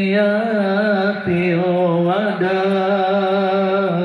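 Chant-like melody in long held notes that waver and bend, with short breaks between phrases and no drum beat.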